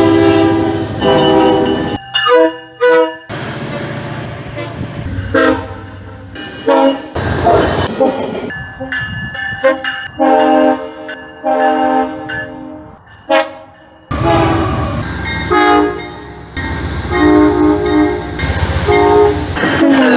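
Locomotive air horns sounding in a string of short clips, each a held chord of several tones that cuts off abruptly into the next. A low rumble runs beneath the horns.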